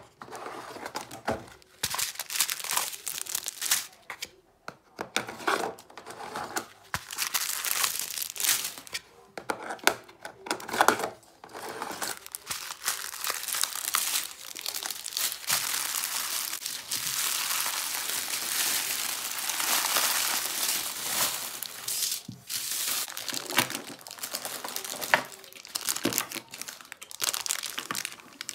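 Small clear plastic bags of diamond-painting drills crinkling and rustling as they are handled and shuffled by hand. The crackling is irregular and runs thicker and more continuous through the middle.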